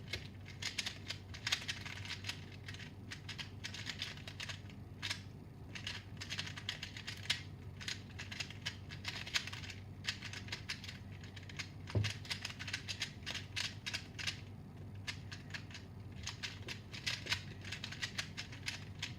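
A Shizheng 2x2 speedcube being turned rapidly by hand: dense runs of quick plastic clicks and clattering with short pauses, from a new cube that is well lubricated out of the box. One duller knock comes about twelve seconds in.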